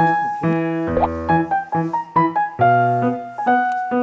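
Background music: a piano-like keyboard playing short chords and a melody, with notes struck two or three times a second.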